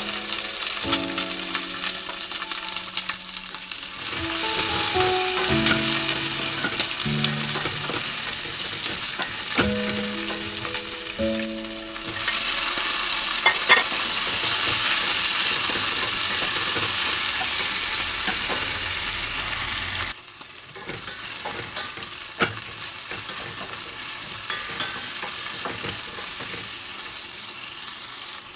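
Sliced shallots, garlic, ginger, red pepper and tomato sizzling in hot oil in a stainless steel pan, stirred with a wooden spatula that clicks against the pan now and then. The sizzling drops to a quieter level about two-thirds of the way through. A soft melody plays over the first part.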